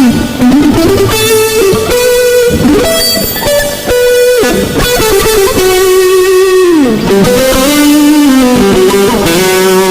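Electric guitar played loud through an effects chain for a tone test: a single-note lead line of held, sustaining notes with pitch bends and slides, one note sliding down about seven seconds in.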